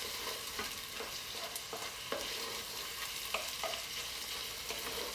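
Beef chunks sizzling as they sear in a hot enameled pot, with a steady frying hiss. A wooden spoon stirs them, giving irregular light knocks and scrapes against the pot.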